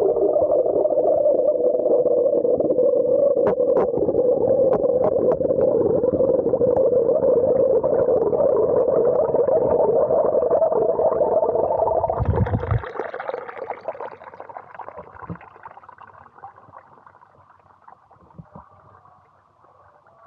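Fountain water heard underwater in the basin: a loud, steady, muffled rushing. About twelve seconds in it breaks off with a brief splash, leaving a faint trickle of water in open air.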